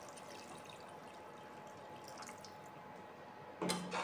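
Water poured from a bottle into a pan of curry, a faint steady splashing trickle. A short knock near the end.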